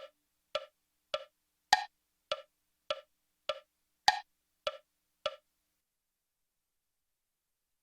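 Metronome click track ticking at a steady tempo of about 100 beats a minute, with every fourth click accented. There are ten clicks, then it stops.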